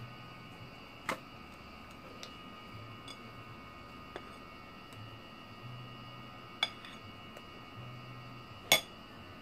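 A handful of light, sharp taps and clicks of kitchen utensils and dishes being handled, about five in all, the loudest near the end, over a faint steady hum.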